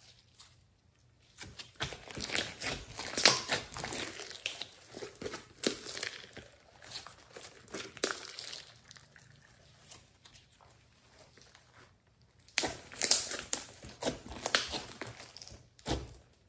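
Hands kneading, pressing and stretching a large mass of slime mixed with clay, making sticky crackles and irregular clicks and pops in bursts, with a lull about two-thirds of the way through.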